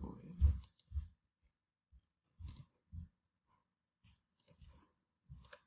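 Computer mouse clicking: about eight short, separate clicks at uneven intervals, each with a light thump.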